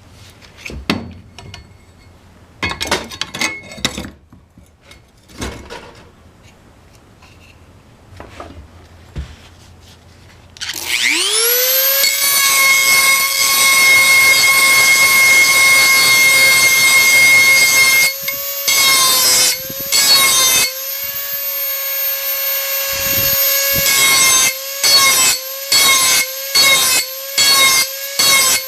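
Scattered clicks and knocks of handling, then a Dremel 4000 rotary tool spins up with a rising whine about a third of the way in and runs at a steady high pitch. From about two-thirds through, its grinding bit is worked against the steel edge of a garden hoe, rasping in short repeated strokes a little more than once a second as the edge is sharpened.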